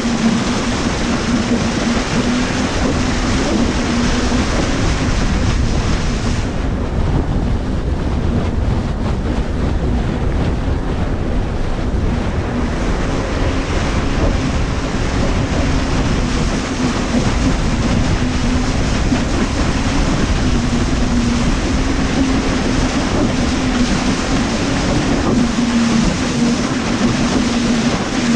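Motorized watercraft running steadily over the ocean: a steady low hum with rushing water and wind buffeting the microphone. The high hiss eases about six seconds in.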